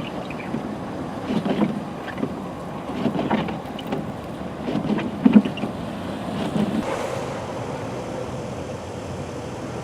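Road vehicle noise mixed with wind on the microphone in a snowstorm, swelling in low surges about every one and a half to two seconds, then settling into a steadier hum for the last few seconds.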